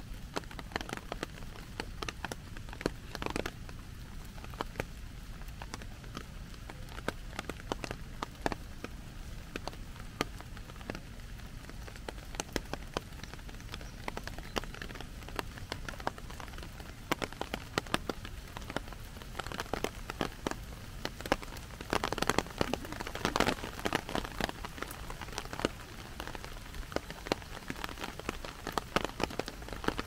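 Heavy rain drumming on a clear plastic umbrella overhead: an irregular patter of sharp drop taps over a steady rain hiss, thickening for a couple of seconds about two-thirds of the way through.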